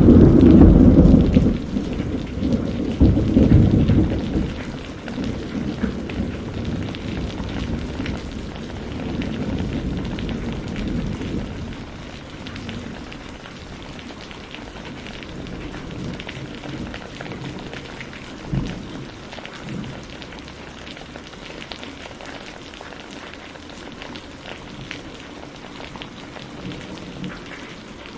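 Steady rain with a loud peal of thunder right at the start that rumbles on for about four seconds and fades away, then more rain, with a brief low thunder crack about two-thirds of the way in.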